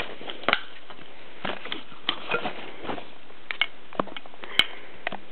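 Handling noise as a baseball is opened up and turned over in the hands: about ten light clicks and taps, scattered irregularly.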